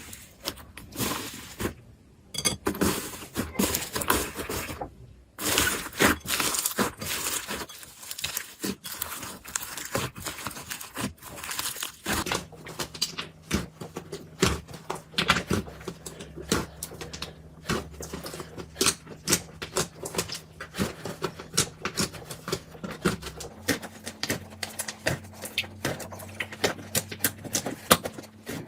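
Slime being squeezed and pressed by hand, giving a dense, irregular run of small clicks, pops and crackles.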